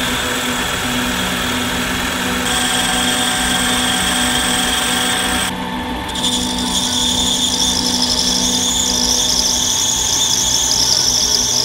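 Metal lathe running, turning a metal bar, with steady machine noise. After a short break about halfway through, a wavering high-pitched squeal from the cutting tool rides over the machine noise.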